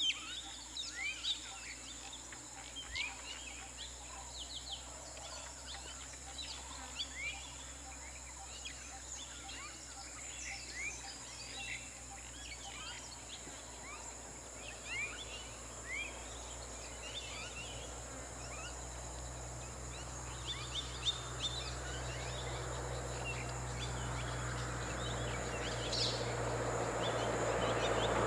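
Birds calling with many short, quick chirps over a steady high-pitched drone. In the last several seconds the rushing noise of an approaching vehicle grows steadily louder.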